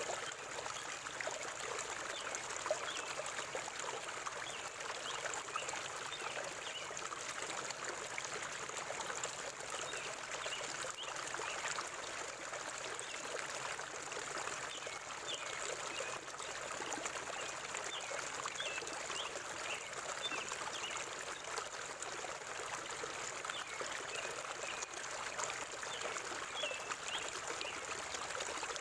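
Forest river water flowing in a steady, even rush with a trickling texture.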